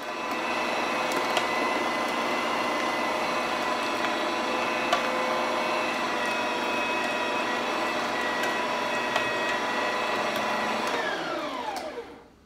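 Electric meat grinder's motor running steadily, then switched off about eleven seconds in, its pitch falling as it spins down.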